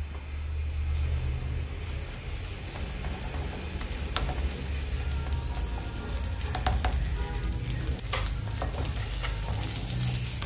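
Fermented soybean gravy sizzling and bubbling in a metal kadai over a gas flame, with a wooden spatula stirring it and scraping against the pan. The sizzle grows stronger about two seconds in, and the spatula knocks on the pan a few times.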